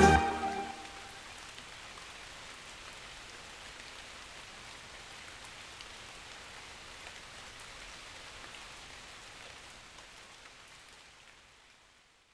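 Steady rain falling, an even hiss of drops splashing on wet ground, fading out near the end. Loud dance music cuts off in the first second.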